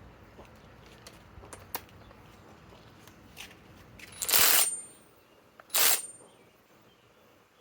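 Kobalt cordless right-angle impact wrench run in two short trigger bursts, the first about half a second long and the second shorter, about a second and a half later. Before them come a few light metallic clicks from a socket being handled.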